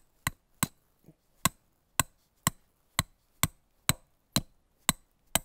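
Tent stake being driven into the ground with steady hammer blows, about two a second, each strike sharp with a short metallic ring; about eleven blows, with a brief pause after the second.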